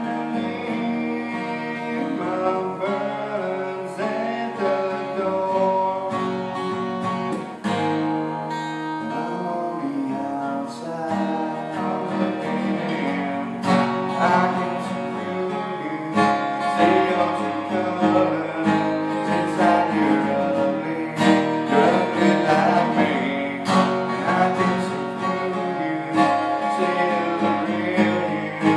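Cutaway acoustic guitar played solo, a continuous run of picked and strummed chords, with sharper, louder strums from about halfway on.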